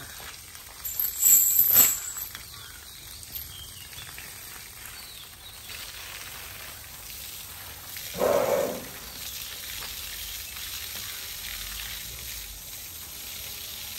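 Hose water spraying and splashing onto an Asian elephant's hide and the wet ground, a steady hiss. About a second in there is a loud, brief ringing clatter, and a short low sound a little past the middle.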